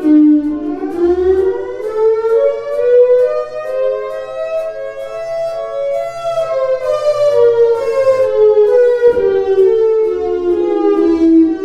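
Thunderbolt siren sounding one slow wail: the tone climbs steadily for about six seconds, then winds back down to a low pitch, its loudness wavering as it sounds.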